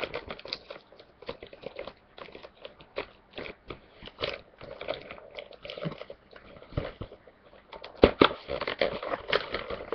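Plastic packaging of a trading-card battle pack kit being forced open: irregular crackling and crunching, busiest near the end as it gives way.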